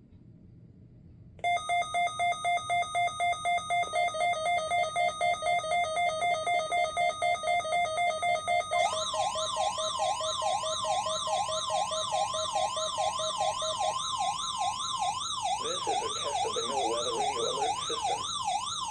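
Weather-radio emergency alert tones of a required weekly test, the signal that sets off alert receivers. A rapidly pulsing beep, about five a second, runs for some seven seconds. Then a siren-like warbling tone rises and falls over a steady tone, which drops out a few seconds before the end.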